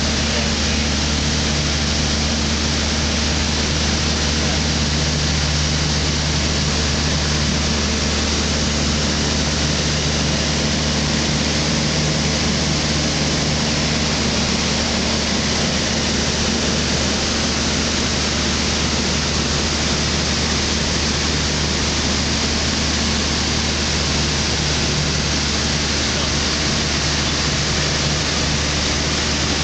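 Thruster T600N microlight in flight, heard from the cockpit: the engine and propeller drone steadily under a strong rush of wind. The engine note changes slightly about halfway through.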